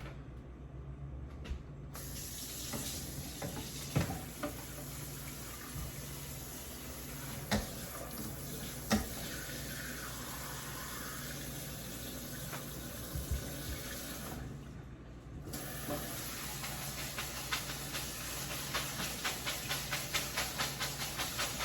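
Kitchen tap running into a sink, a steady rush of water that cuts out for about a second midway, with a few knocks and clatter and a quick run of light ticks near the end.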